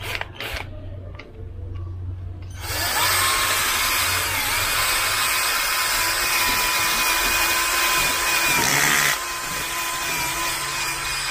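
Ingco cordless drill spinning a polishing pad, buffing rubbing compound on a plastic headlight lens: a steady motor whine starts about three seconds in and drops a little in level about nine seconds in.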